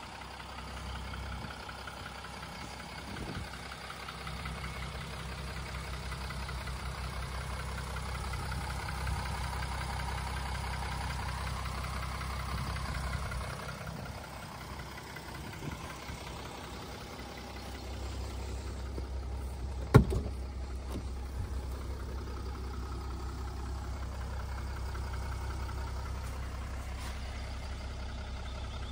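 Mercedes-Benz E350d's 3.0-litre V6 diesel idling steadily with a low rumble. A single sharp knock stands out about two-thirds of the way through.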